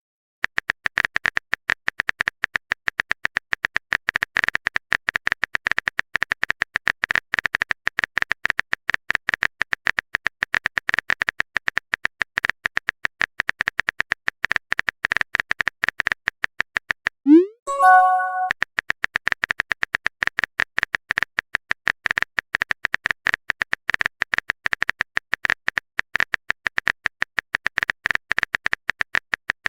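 Rapid, steady clicking of a phone-keyboard typing sound effect, the kind used in texting-story videos. A little past halfway, a short rising pop and chime of a message notification breaks it, then the typing clicks resume.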